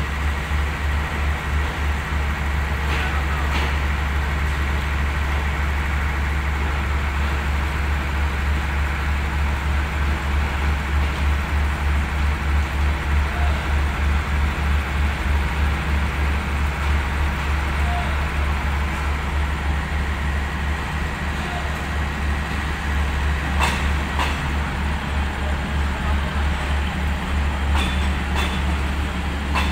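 Diesel passenger train moving slowly through the station: a steady low rumble with an even throb, with a few sharp clicks near the end.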